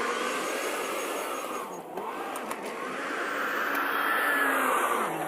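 Case 580 Super N backhoe's diesel engine running, its pitch rising and falling as the load changes. It dips briefly about two seconds in and again near the end.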